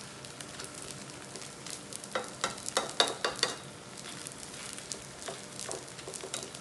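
Roti dough frying in an oiled non-stick pan, the oil sizzling steadily. A metal slotted spatula clicks and scrapes against the dough and pan in a run of quick strokes about two seconds in, and again briefly near the end.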